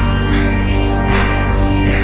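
Loud party music with a deep bass and long held chords, with a rising swell about a second in and another near the end.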